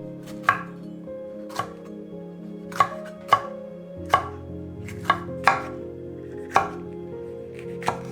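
Kitchen knife chopping food on a cutting board: about nine or ten separate sharp knocks at an unhurried, uneven pace of roughly one a second, over soft background music.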